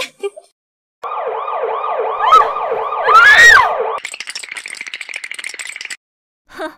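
Police siren sound effect: a fast, repeating yelp with a louder rising-and-falling whoop near its end, then about two seconds of rattling.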